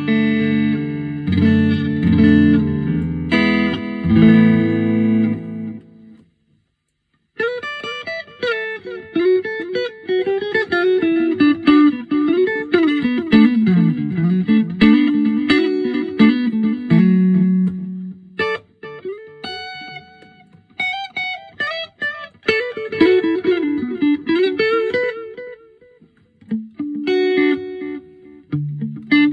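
Electric guitar, a Fender Stratocaster played through a T-Rex Reptile delay pedal into a Roland JC-40 amp. It opens with ringing chords, breaks off for about a second, then plays single-note melodic lines with short pauses, and returns to chords near the end.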